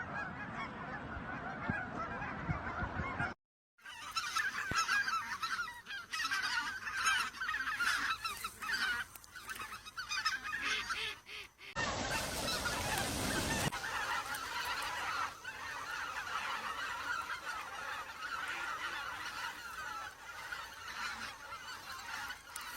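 A flock of wild geese honking, many calls overlapping. The audio is three recordings joined together: a short break of silence about three seconds in, and a change of recording about twelve seconds in, where a brief rush of noise lies under the calls.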